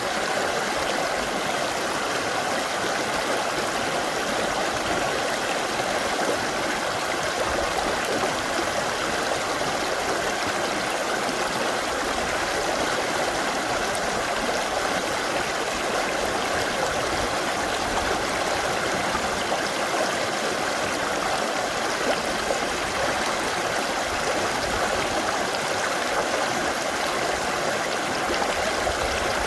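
Mountain stream rushing over rocks: a steady, even flow of water.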